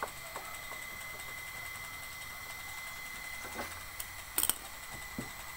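Light clicks of a screwdriver and screws being worked on a plastic washing-machine outer tub, with a quick cluster of sharp clicks about four seconds in.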